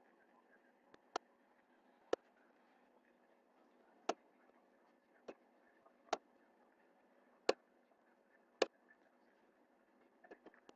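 Computer mouse button clicks: single sharp clicks every one to two seconds, with a few quicker clicks near the end, over a faint steady hiss.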